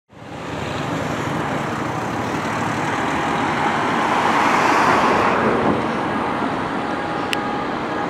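Street traffic noise, with a car passing close by in the middle that swells and then fades. A short sharp click comes near the end.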